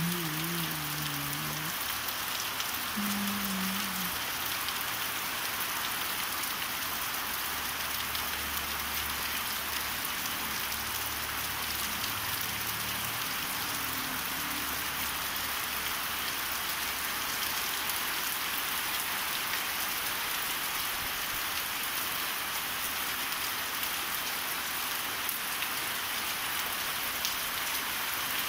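Steady rain falling on trees, leaves and open ground, an even hiss of drops that holds throughout.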